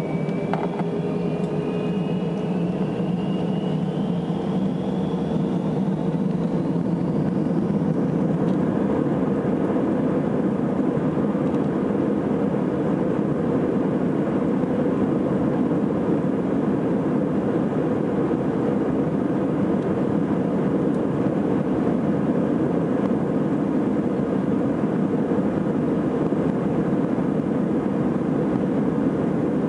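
Airbus A321's jet engines spooling up to takeoff thrust, heard from inside the cabin: a whine that rises in pitch over the first several seconds, then a steady loud engine noise with runway rumble through the takeoff roll.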